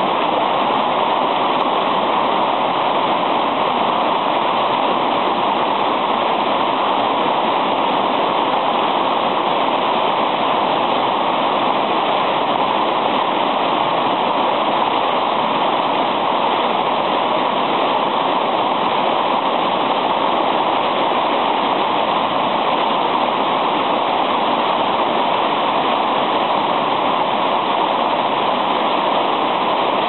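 A small waterfall, a wide curtain of water falling over a straight ledge, splashing steadily into the pool below: an even, unbroken hiss with little deep rumble.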